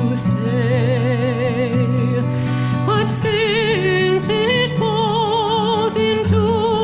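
Background music: a sung melody with strong vibrato over sustained low held notes.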